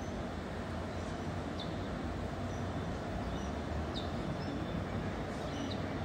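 Low, steady rumble of a distant approaching train, with short, high bird chirps scattered through it.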